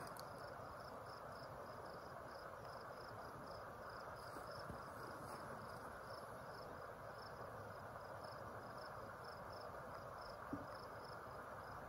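Insect chirping steadily: a short high-pitched chirp repeating about three times a second over a faint, steady outdoor hiss.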